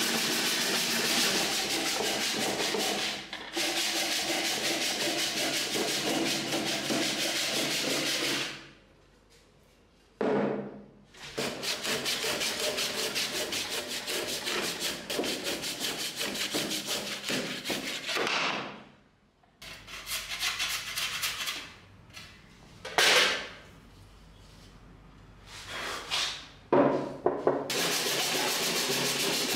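Hand saw cutting through a log clamped in a bench vise, in long runs of quick back-and-forth strokes. It stops twice for a second or two and restarts, with a few short scrapes in between.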